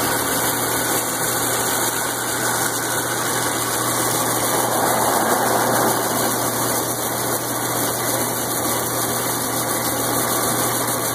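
Aronia berry destemmer running with a steady mechanical hum and whir, its rod bed turning as berries pass over it.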